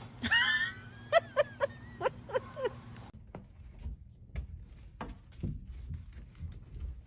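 An animal giving a string of short high-pitched calls, about seven in quick succession in the first three seconds, followed by a few faint clicks and knocks.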